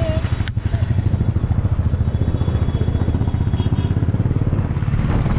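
Royal Enfield Bullet's single-cylinder engine running under way, with a steady, rapid exhaust beat. A short horn toot ends right at the start, and there is one sharp click about half a second in.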